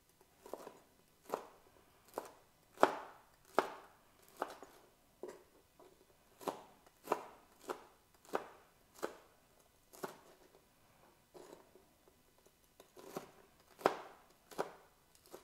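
Kitchen knife slicing chicken nuggets into thin strips on a plastic cutting board: a series of sharp knocks of the blade on the board, a little over one a second, with a pause of a few seconds about two-thirds of the way through.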